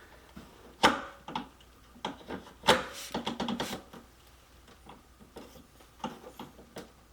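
Scattered knocks and clicks of parts being handled while a TV stand foot is fitted, with two sharper knocks about one and three seconds in and a quick run of small ticks just after the second.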